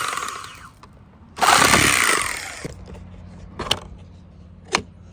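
Unpacking noise from a cordless tool kit: two bursts of rough rasping and rustling, the second louder and about a second long, then two sharp clicks.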